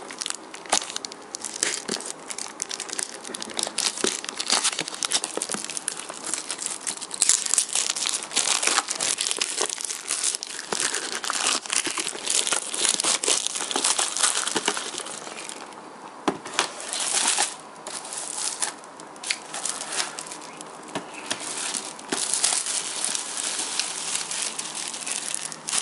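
Thin plastic shrink wrap being torn off a cardboard box and crumpled by hand: continuous crinkling and crackling with many sharp snaps, easing off for short moments about two-thirds of the way through.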